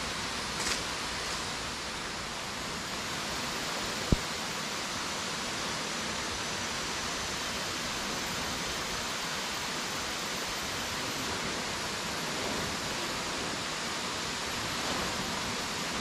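Steady rushing of river water, with a single sharp click about four seconds in.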